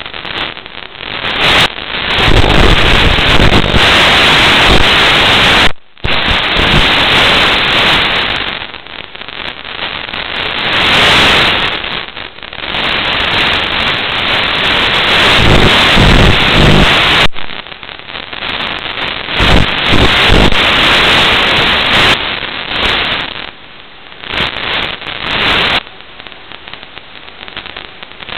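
Loud hiss of static from the analog FPV video link's audio channel, recorded by the goggles' DVR. It swells and fades with the radio signal and cuts out briefly about six seconds in.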